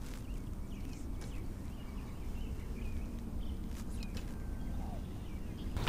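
Steady wind rumbling on the microphone, with a few faint bird chirps scattered through it.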